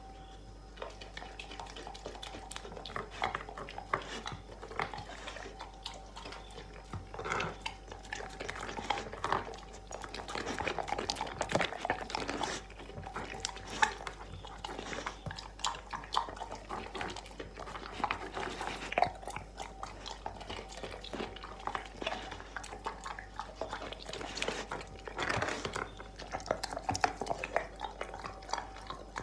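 A dog eating off a tile floor: irregular licking, smacking and chewing of soft treats and whipped cream, with small clicks and taps against the tile.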